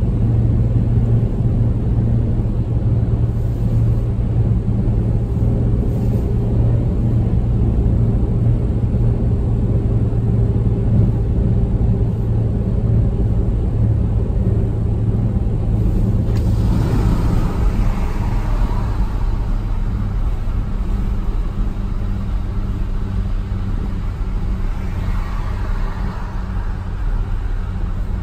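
Inside a car cabin at highway speed: a steady low engine and road drone, with a hiss of road and wind noise that swells twice, a little past the middle and near the end.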